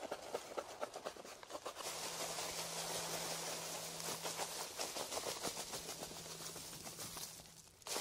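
Hands working dry leaf litter and a charcoal stick over paper: irregular crackling, scratching and rustling. A steady low hum runs under it from about two seconds in until near the end.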